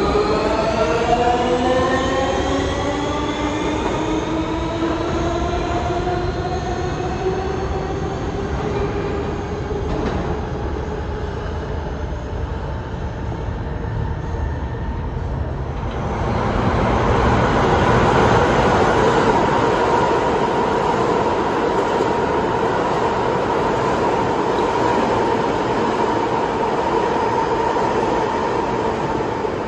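A New York City Subway R160 train pulls out on the local track, and its traction-motor whine rises in pitch as it accelerates away, fading over the first ten seconds or so. About sixteen seconds in, an express train runs through the station on the express track at speed. It is a louder rumble of wheels on rail with a steady hum, easing off near the end.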